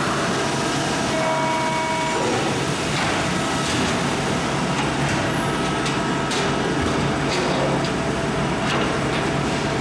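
Steady noise of a large hydraulic press brake (a Maru Kikai 300-ton bender) running on a sheet-metal shop floor, with a low hum, a couple of brief tones about a second in and a few sharp clicks later.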